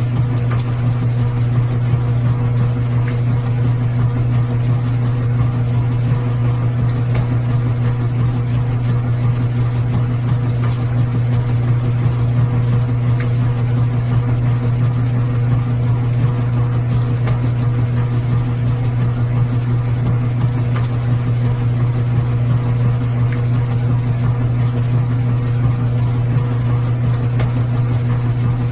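Washing machine running with a steady low hum and faint occasional ticks.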